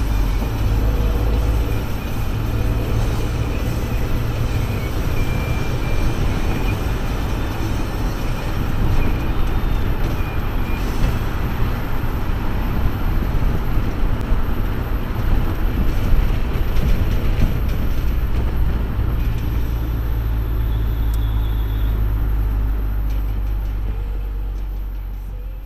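Driving noise of an open-top 1992 Suzuki Cappuccino on the move: its small turbocharged three-cylinder engine, tyres and wind blend into a steady low rumble, with surrounding road traffic. The sound fades out near the end.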